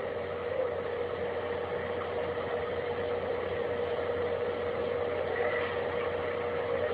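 A steady droning hum holding one unchanging tone over a bed of noise: one of the mysterious 'strange sounds' recorded from the sky.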